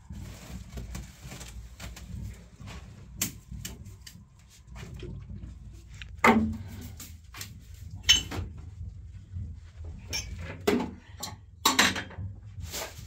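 Irregular knocks, clatter and brushing swishes of housework: a short straw hand broom sweeping the floor and household things being handled and set down, over a low steady rumble.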